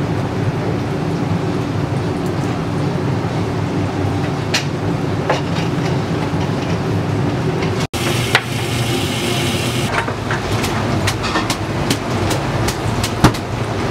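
Steady rumble of a working ramen kitchen, with a noodle boiler and kitchen machinery running, and many scattered clinks and knocks of utensils, bowls and wire noodle strainers on steel. After a cut about eight seconds in, there is a brief hiss lasting about two seconds.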